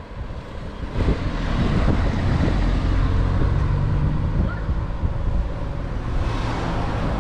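Car driving: a steady low engine and road rumble with wind noise on the microphone, getting louder about a second in.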